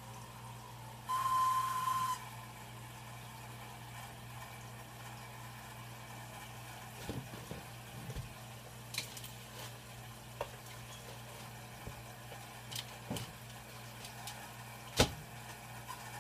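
Kitchen sounds: a loud hiss lasting about a second, about a second in, then a steady low hum with scattered light knocks and clinks of dishes and utensils being handled. One sharper knock comes near the end.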